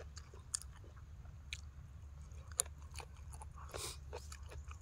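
A person chewing a mouthful of spicy papaya salad close to the microphone, with scattered short crunches and mouth clicks.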